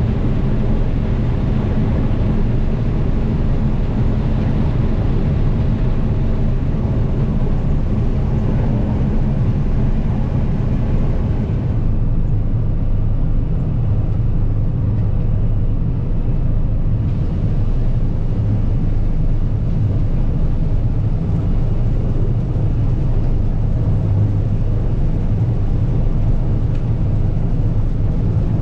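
Combine harvester running steadily while harvesting corn: a loud, even, low engine hum. The higher sounds drop out for a few seconds in the middle.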